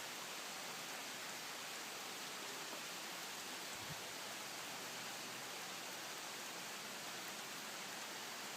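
Steady, even hiss of background noise with no distinct sound standing out, and a single faint low knock about four seconds in.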